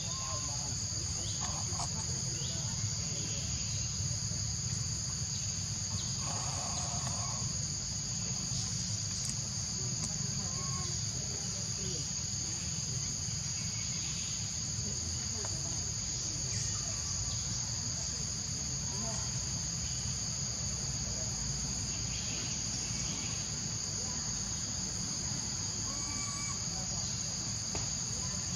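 Steady high-pitched insect chorus, two unbroken droning tones, over a constant low rumble, with a few faint short chirps scattered through it.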